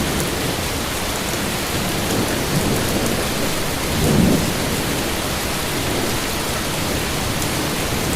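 Heavy rain falling steadily, an even hiss, with a brief low swell about four seconds in.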